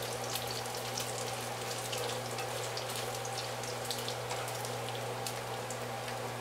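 Diced bacon frying in shallow oil in a nonstick pan: a steady sizzle dotted with many small pops and crackles as the fat renders and the bacon crisps toward golden. A steady low hum runs underneath.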